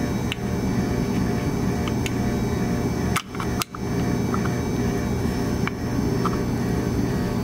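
Steady low mechanical hum, with a few faint metallic clicks as a wrench is set onto a threaded intake air temperature sensor adapter fitting on the intake manifold and snugged down. The sound cuts out briefly twice a little past the middle.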